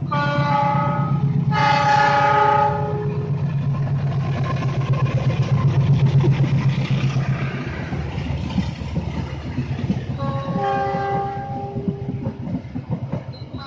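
Pangrango diesel passenger train passing and sounding its horn, several notes at once: two blasts in quick succession at the start and another about ten seconds in, the driver's horn greeting. Under the horn, the steady rumble of the locomotive and coaches rolling by, loudest about six seconds in.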